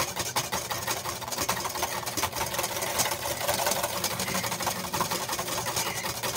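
Wire whisk beating egg yolks and lemon juice in a stainless steel bowl: a fast, steady clatter of the wires against the metal as air is whipped into the yolks.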